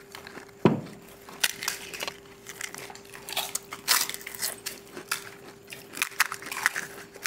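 Crisp fried pani puri shells being cracked, crunched and chewed by several people eating fast, with irregular crackles throughout and one loud thump well under a second in. A faint steady hum runs underneath.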